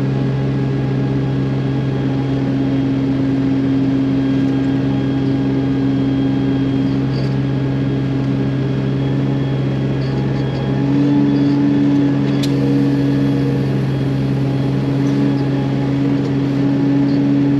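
Cat C15 diesel engine of a Peterbilt 379 truck running at a steady, unchanging speed, a constant drone with no revving.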